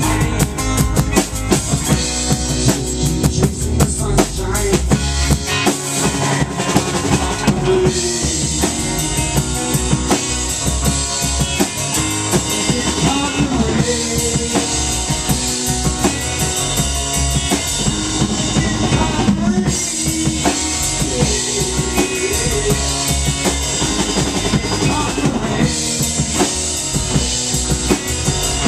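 Rock band playing live: drum kit with bass drum and snare under electric bass and guitars, steady and loud.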